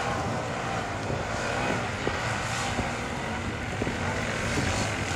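Racing ATV engines running, a steady engine drone with no clear rise or fall.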